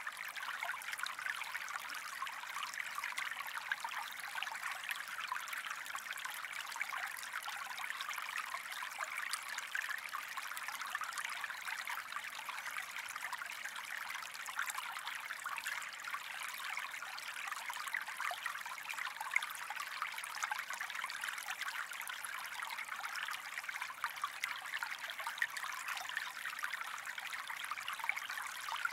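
Gentle stream trickling and babbling steadily, a constant rush of water with fine splashing detail.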